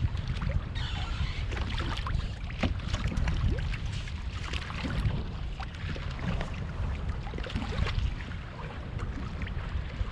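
Wind buffeting the microphone as a steady low rumble, over choppy water lapping against a kayak hull, with many scattered small splashes and knocks.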